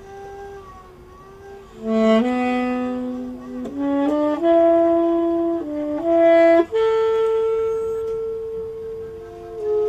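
Background music: a slow melody of long held notes on what sounds like a wind instrument, entering loudly about two seconds in, with a second part moving alongside it.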